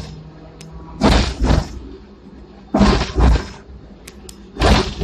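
Hong Kong tram's steel wheels clacking over rail joints as it runs along street track, heard from inside the car: three pairs of loud clacks, the two in each pair about half a second apart and the pairs coming about every two seconds, over a low steady hum from the running tram.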